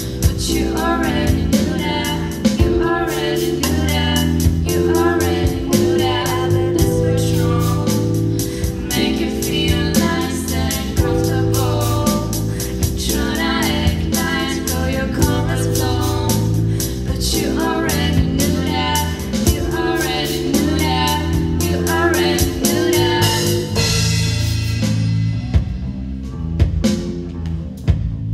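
Live rock band playing: female voices singing over keyboard, bass guitar and a drum kit keeping a steady beat. About four seconds before the end the drums and singing drop out and the song thins to a ringing chord.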